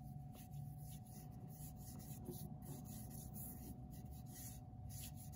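Paintbrush swishing side to side along the edge of a canvas: soft, faint, repeated brush strokes.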